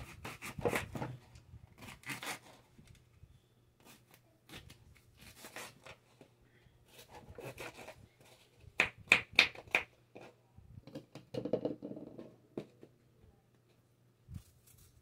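Intermittent hand handling noises, rustling, scraping and light knocks, as recipe ingredients are handled. The loudest is a quick run of strokes about nine seconds in. A faint steady low hum runs underneath.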